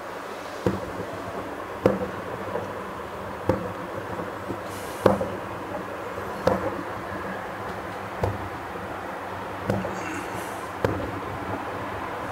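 Distant aerial firework shells bursting: about eight dull bangs at uneven intervals of one to two seconds over a steady background hiss, with a brief high hiss twice in between.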